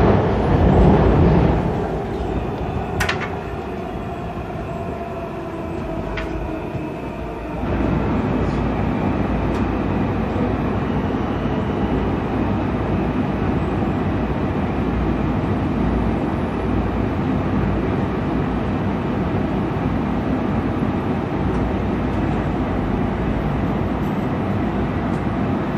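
A WMATA Metro Breda rehab railcar running through a tunnel, heard from inside the car: a steady rumble of wheels and running gear. It eases off after the first second or so with a faint falling whine, then turns louder again about seven and a half seconds in and holds steady, with a couple of faint clicks early on.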